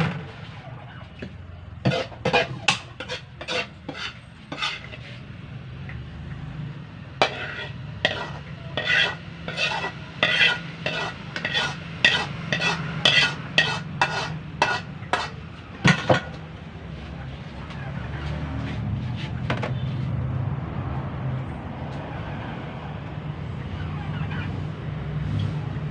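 A metal utensil scraping and knocking against a steel frying pan as cooked sardines are emptied onto a plate: two runs of sharp scrapes, about two a second, one a few seconds in and a longer one in the middle, over a steady low hum. A soft even hiss follows in the last part.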